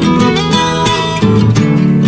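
Background music: an instrumental passage of a song, with strummed guitar and no singing.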